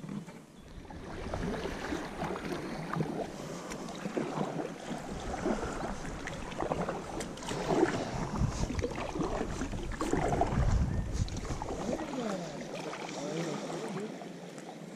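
Kayak paddle strokes splashing and water sloshing against an inflatable kayak as it is paddled along a river. The splashing eases off near the end as the boat drifts.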